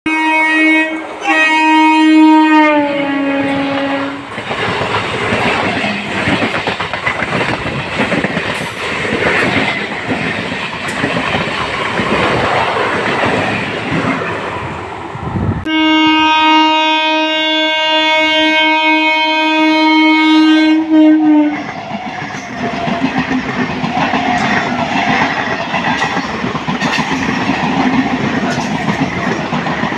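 Horn of an electric multiple-unit local train sounding twice. The first blast lasts about four seconds and drops in pitch near its end; the second, about six seconds long, comes midway. Between the blasts and after them, the train runs with a steady rumble and wheel clatter on the rails.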